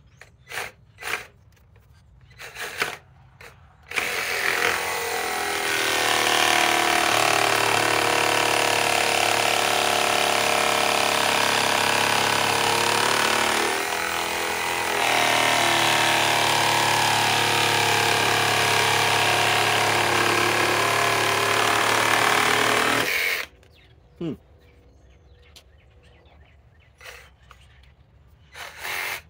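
Metabo HPT CR18DA 18-volt cordless reciprocating/jig saw running. A few clicks come first, then about four seconds in the motor spins up to speed and runs steadily for about nineteen seconds, sagging briefly about halfway through before it stops abruptly.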